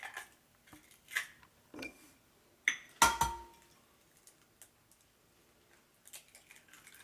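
Eggs cracked over a glass baking dish: a few light clicks and shell crackles, with one sharp tap about three seconds in that rings briefly on the glass, then a faint crackle near the end as the second egg is pulled open.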